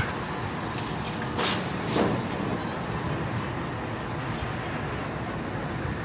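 Steady hum and hiss of port traffic and machinery on the quayside below, with no single vehicle standing out.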